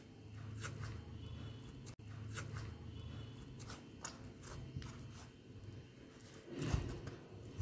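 Hands kneading a lump of cooked semolina dough in a nonstick pan: faint, irregular squelching and crackling as the dough is pressed and folded, with one soft thump about three-quarters of the way through.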